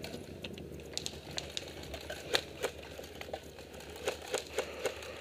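Airsoft gunfire: scattered sharp clicks and snaps, about a dozen in irregular bunches, from replica guns firing and BBs striking the plywood bunkers.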